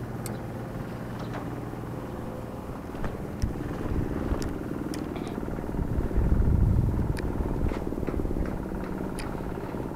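A motor engine running steadily, swelling loudest about six to seven seconds in, with a few short sharp clicks scattered through it.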